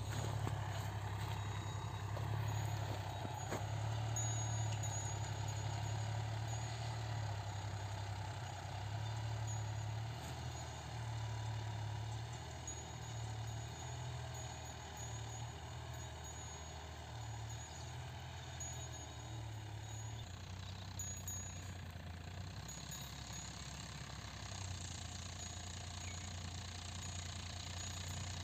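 John Deere 5210 tractor's three-cylinder diesel engine running under load while it pulls a tine cultivator through the soil: a steady low drone that pulses unevenly and eases off a little about twenty seconds in.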